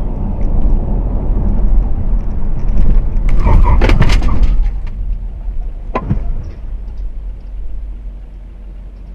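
Vehicle collision: a steady low rumble of a moving vehicle, then a burst of crunching impacts between about three and four and a half seconds in, the loudest part, and one more sharp knock about six seconds in.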